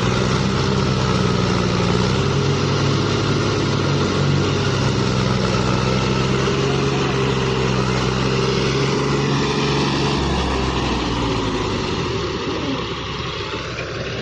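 Tractor diesel engine running steadily at a constant pitch; the steady drone breaks up and eases slightly a few seconds before the end.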